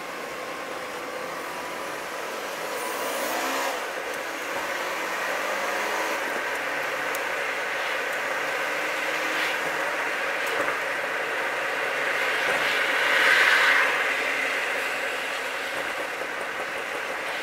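A car's engine and tyre noise heard from inside the cabin as it drives, building over the first few seconds as the car pulls away from a roundabout and gathers speed. A louder swell of noise comes about three quarters of the way through.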